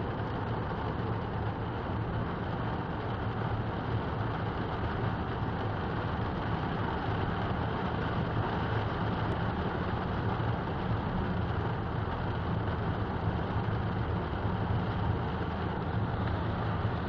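Steady noise inside a car driving on a motorway in heavy rain: rain on the bodywork and windscreen mixed with a low hum of tyres on the wet road and the engine.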